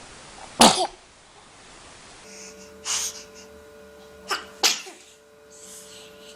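Young children sneezing: a loud sneeze just under a second in, then more sneezes, including a quick sharp pair a little after four seconds.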